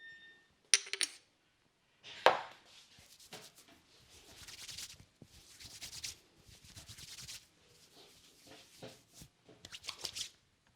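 Hands massaging a head: fingers rubbing and scratching through the hair in rustling bursts. There are sharp snaps a little under a second in and a loud one just after two seconds, and quick clicks and pats near the end.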